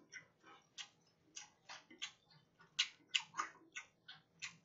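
Close-miked chewing of crisp, batter-fried oyster: irregular crunchy crackles, a few each second.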